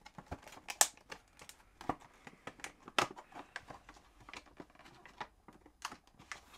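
Plastic lure packaging being handled as a lure is put back in: irregular crinkles, clicks and taps, with the sharpest clicks about a second in and about three seconds in.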